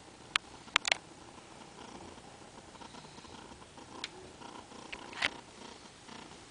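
A sleeping person snoring softly and steadily. Several sharp clicks cut through it, twice just before a second in and again around four and five seconds in.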